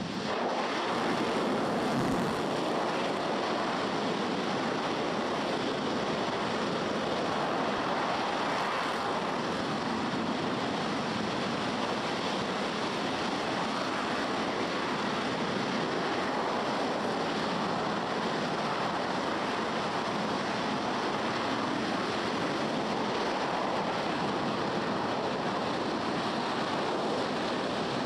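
An RS-25 liquid-fuelled rocket engine firing on a test stand: a deep, steady rushing noise. It builds up in the first second just after ignition, then holds even.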